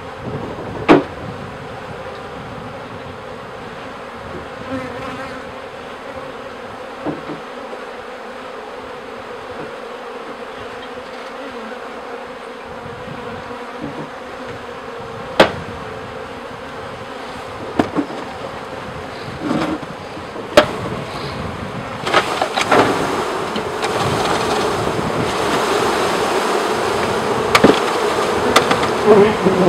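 Honeybees buzzing steadily, the buzz swelling louder and denser in the last third as a package of bees is shaken out of its screened wooden cage into a top-bar hive. Several sharp knocks stand out over the buzz, a few of them the loudest sounds.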